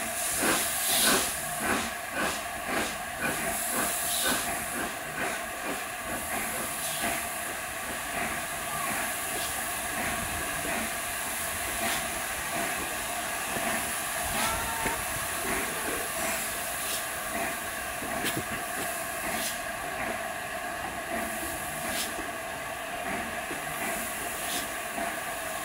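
LNER A4 Pacific No. 60009's steam locomotive running slowly with a steady hiss of steam. Regular exhaust beats come about twice a second in the first few seconds, then grow sparser and fainter.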